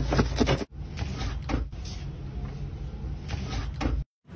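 A knife crunching through a toasted grilled sandwich makes a quick run of sharp crackles that cuts off under a second in. After that comes a steady low hum with a few scattered clicks and knocks, broken by an abrupt cut near the end.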